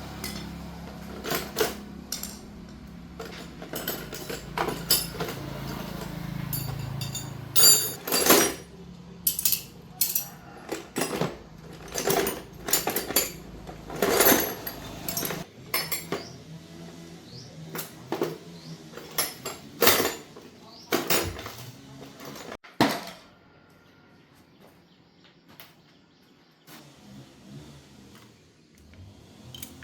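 Repeated sharp metallic clinks and knocks of hand tools and metal parts being handled, over a low steady hum that cuts off about halfway through.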